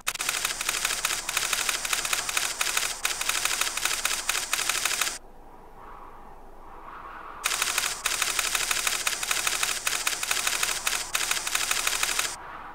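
Rapid typewriter-like clatter of a text-typing sound effect as lines of text print out on screen, in two spells of about five seconds with a pause of about two seconds between.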